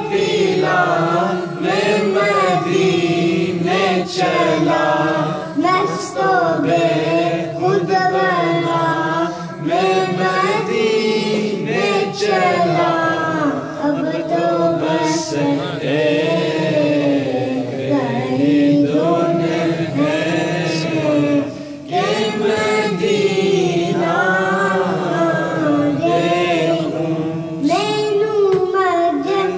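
A young boy singing an Urdu naat, a devotional poem in praise of the Prophet, into a microphone, his melody rising and falling from line to line. A lower, steadier vocal drone runs beneath the melody.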